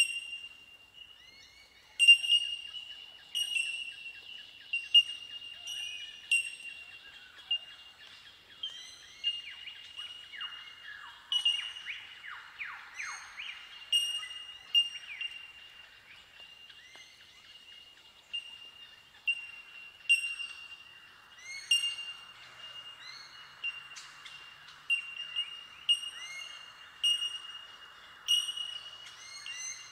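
A colony of bell miners (bellbirds) giving their ringing, bell-like 'tink' calls, many short notes overlapping into a continuous chiming chorus. About a third of the way in, a run of lower calls sweeping down in pitch joins in.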